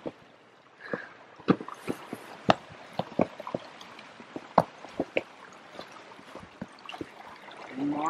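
Small mountain stream trickling and gurgling over rocks, with irregular crunching footsteps in fresh snow.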